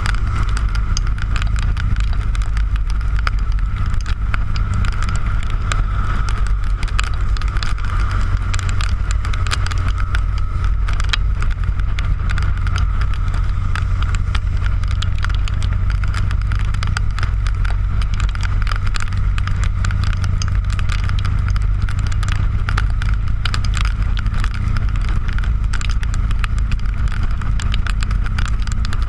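Harley-Davidson motorcycle's V-twin engine running steadily at cruising speed, heard through a handlebar-mounted GoPro as a loud low rumble mixed with wind noise and tyre roar, with many small clicks from raindrops striking the camera.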